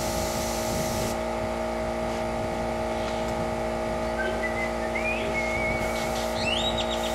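Airbrush spraying with a fine hiss that stops about a second in, over the steady hum of its running air compressor. A few bird chirps come near the end.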